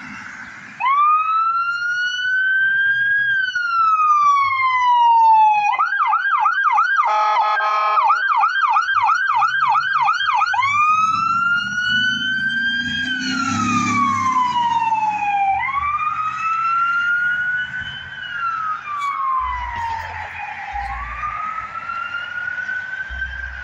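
Brush truck's siren going out on a call: a slow rising-and-falling wail, then a fast yelp with a short horn blast in the middle, then back to the wail, which fades near the end as the truck drives away. The truck's engine rumbles low under the siren as it passes.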